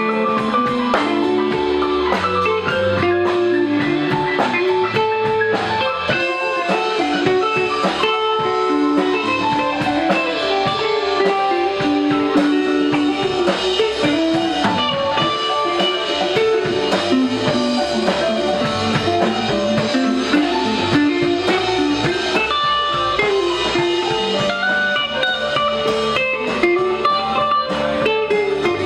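Live rock band playing instrumentally: an electric guitar plays a lead line over bass guitar and a drum kit.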